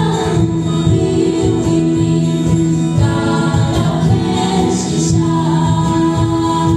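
Small kids' choir singing a Khasi song in harmony to acoustic guitar, heard through stage microphones and PA speakers, with long held notes.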